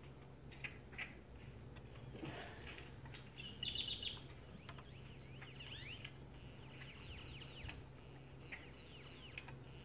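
Faint birds chirping with many short quick calls, with a brief louder run of rapid high notes about three and a half seconds in, over a steady low hum.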